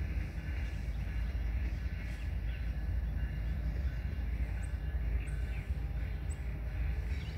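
Birds chirping over a steady low outdoor rumble, with a few short, high chirps about halfway through.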